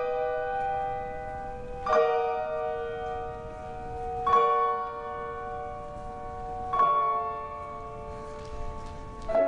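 Instrumental music: a chord of several ringing tones struck four times, about every two and a half seconds, each left to fade before the next.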